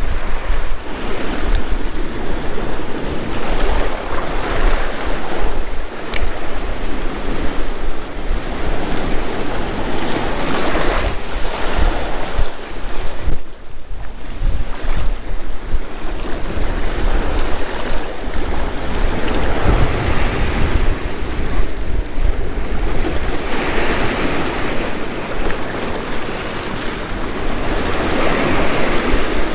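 Gale-force wind buffeting the microphone, over surf breaking on rocks, in swells every few seconds, with a brief lull about halfway through.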